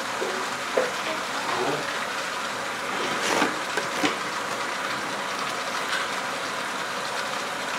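A steady hiss, with a couple of light knocks about three and four seconds in.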